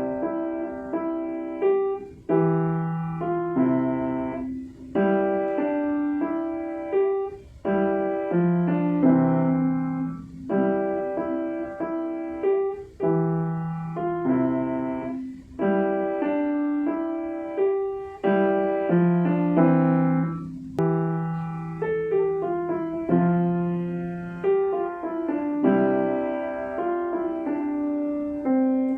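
Piano playing a piece in chords and melody, phrase by phrase, each phrase of struck notes fading before the next begins.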